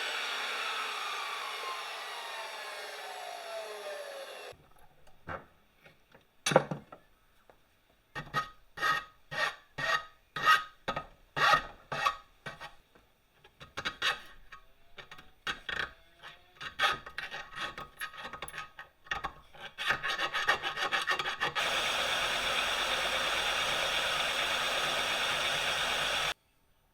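Hand filing on steel: rasping strokes at about two a second. Before them, a power tool runs down with a falling whine, followed by a single sharp knock. Near the end a steady power-tool hiss runs for a few seconds and cuts off suddenly.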